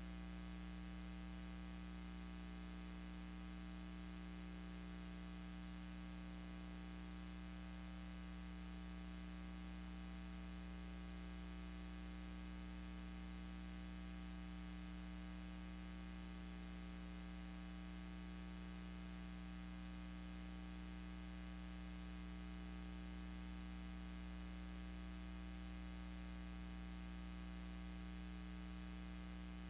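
Steady electrical mains hum over a constant hiss.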